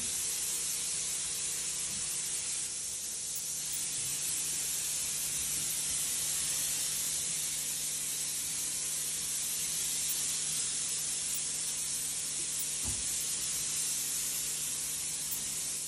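Hose-fed spray wand spraying disinfectant in a continuous, steady hiss, with a steady low hum underneath.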